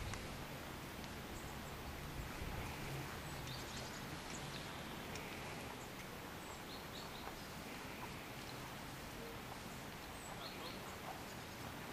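Steady outdoor background hiss with scattered short, high bird chirps.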